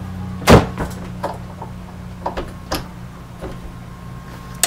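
Power cord and plug of an APC Back-UPS being handled and plugged in. One sharp knock about half a second in, then scattered lighter clicks and taps.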